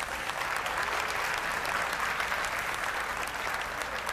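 Large audience applauding, a dense, steady clapping.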